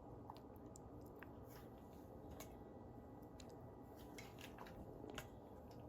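Faint, scattered clicks and soft scrapes of a spoon putting guacamole into a bowl, over near-silent room tone.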